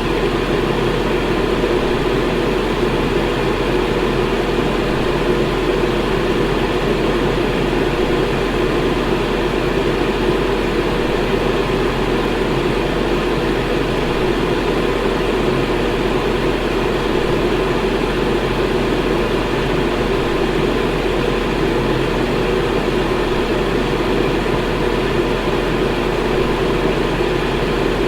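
Electric fan running steadily: an even whooshing rush of air with a low hum underneath, unchanging throughout.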